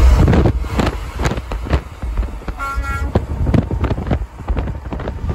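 Wind buffeting the microphone over steady highway road rumble, with irregular gusty thumps, and a brief high pitched tone about two and a half seconds in.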